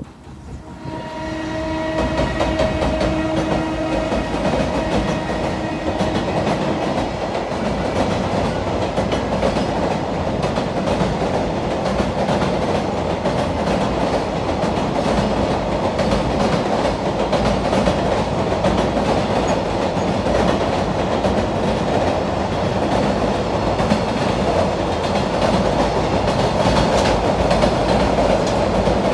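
Train running past with loud, steady rumbling rail noise that builds in the first second. A steady tone is heard over it for the first few seconds, then fades.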